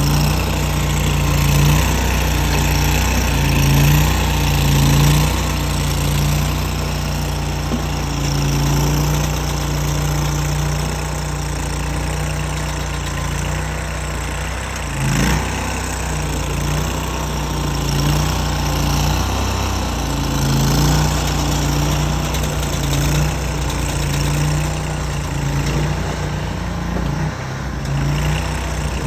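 Engine of a mini tracked skid steer running while it works, its low note swelling and easing every second or two as the load changes. One sharp knock about 15 seconds in.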